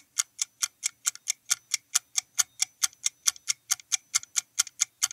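Countdown-timer sound effect: clock-like ticks, evenly spaced at about four a second, marking the time left to answer the quiz question.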